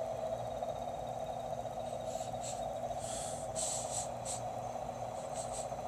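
Steady unexplained droning hum, one of the reported mysterious sky sounds, which the listener likens to a jackhammer that goes on and on or a helicopter hovering behind buildings. A few short hissing sounds come over it in the second half.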